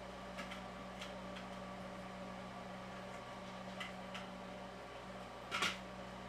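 Small parts and tools being handled on a workbench: a few light clicks and taps, then a louder sharp click about five and a half seconds in, over a steady electrical hum.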